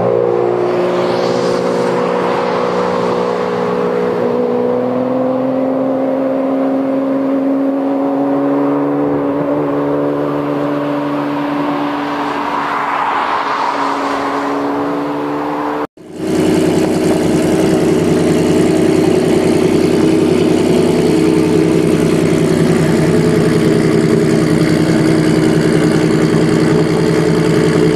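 A Ferrari Enzo's V12 accelerating away, with more cars passing, the pitch of the engine rising and falling. About halfway through the sound cuts abruptly to a Ferrari F50's V12 idling steadily.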